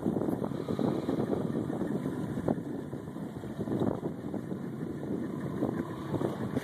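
Wind buffeting the microphone in uneven gusts over the steady running of a boat's engine.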